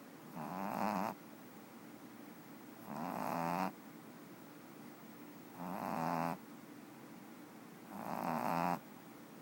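Boston terrier puppy snoring in its sleep: four snores, one about every two and a half seconds, each building up and then cutting off sharply.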